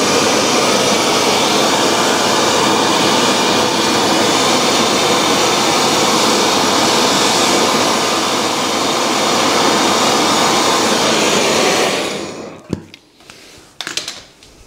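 Hand-held gas blowtorch burning with a steady rushing hiss as it heats a steel thrust collar, so that the collar expands enough to fit over the screw. The flame cuts off about twelve seconds in, followed by a few light knocks.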